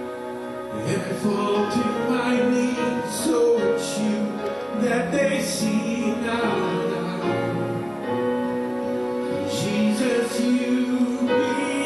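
Church worship music: sustained instrumental chords with some singing.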